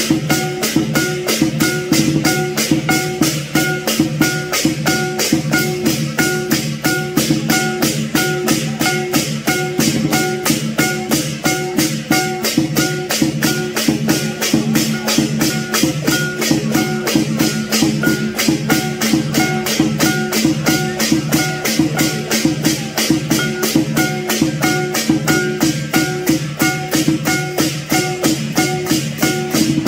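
Lion dance percussion band playing a fast, steady beat: drum strokes with crashing cymbals and a ringing gong, unbroken throughout.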